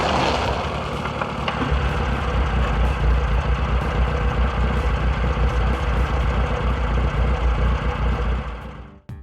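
Heavy truck engine running steadily with a deep low rumble that builds about two seconds in, then fades out near the end.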